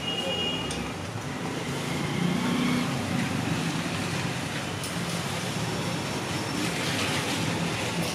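Steady street traffic noise with a low hum.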